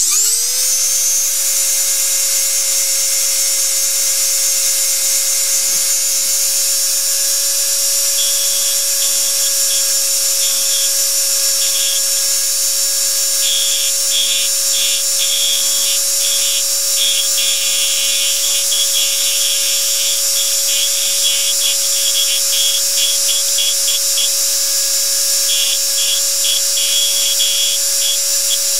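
Powered engraving machine switched on, its motor spinning up within the first second to a steady hum with a high whine. From about eight seconds in, short irregular bursts of higher buzzing come and go as the handpiece drives the graver into the coin.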